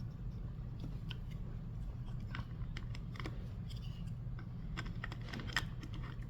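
Faint, scattered clicks and taps of small plastic parts being handled, as the end caps of a plastic sensor housing are fitted back into the box, over a steady low hum.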